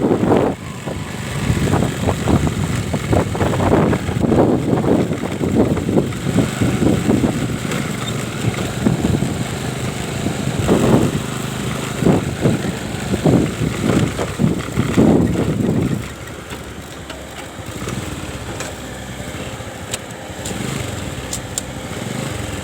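Engine running, loud and uneven with repeated surges for about the first sixteen seconds, then quieter and steadier.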